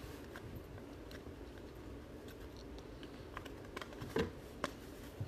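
Trading cards being handled and flipped through by hand: soft clicks and snaps of the card stock, more frequent in the second half, with two sharper clicks about four seconds in, over a low steady room hum.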